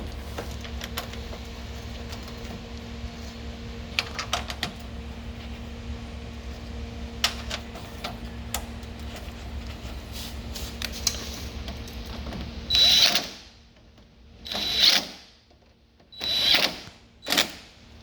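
Scattered small clicks over a steady low hum, then four short bursts of a small electric motor whining near the end.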